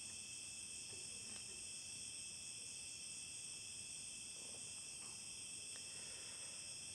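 Faint, steady high-pitched insect chorus.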